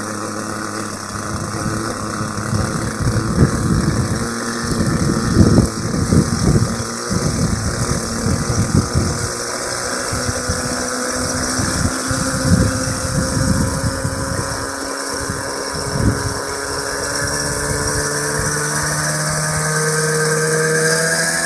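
Nitro glow engine of a Raptor 50 radio-controlled helicopter running on the ground at low throttle as the main rotor spins up. Its note climbs steadily over the last few seconds as the rotor speed rises. Rumbling buffets hit the microphone through the middle.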